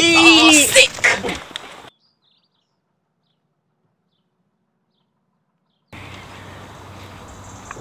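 Young men laughing and whooping loudly for about the first second, then dead silence for about four seconds, then quiet park ambience with faint birdsong.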